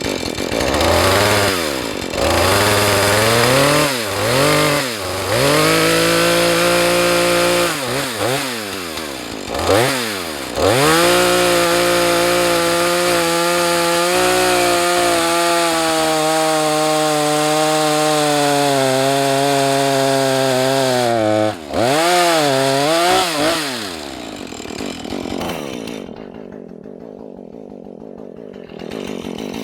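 Husqvarna 435 two-stroke chainsaw cutting into a small tree trunk: it revs up and drops back several times, then holds a long steady full-throttle cut of about ten seconds, revs once more and falls to idle for the last few seconds.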